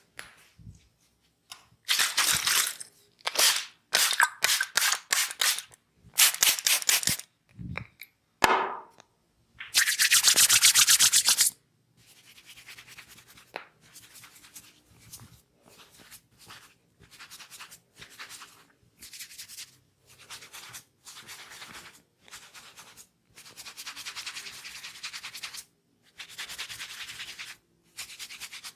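Hands massaging a person's head and neck: loud runs of rapid slapping and tapping in the first half, then quieter repeated rubbing strokes in steady groups.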